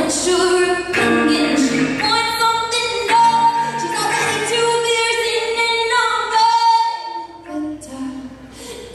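Live music: a woman singing to her own acoustic guitar, with an alto saxophone playing alongside; it grows quieter near the end.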